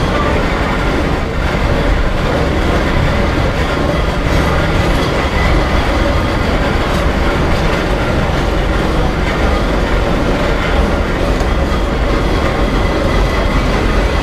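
Steady rumbling and rattling of a passenger trailer towed by a coal-fired steam traction engine, heard from aboard the moving trailer.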